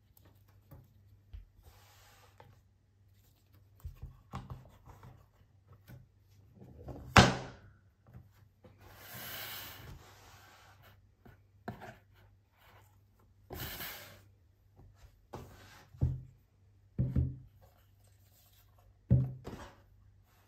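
Watch packaging being handled on a wooden table: cardboard box and sleeve knocked, slid and rubbed, with a sharp thunk about seven seconds in, the loudest sound, and several softer thuds later.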